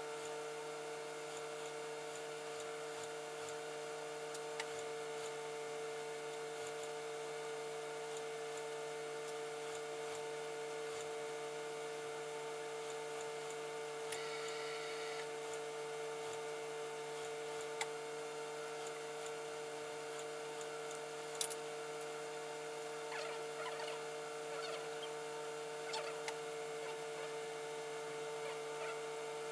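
Industrial sewing machine's motor humming steadily as it runs, with a few faint clicks.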